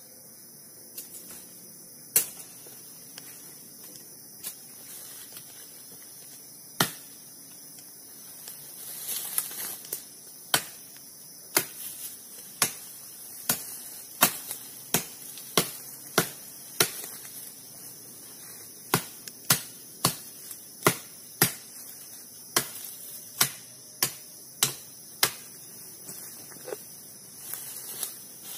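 Sharp knocks, scattered at first and then in quick runs of about two a second from about ten seconds in, over a steady high-pitched insect chirring.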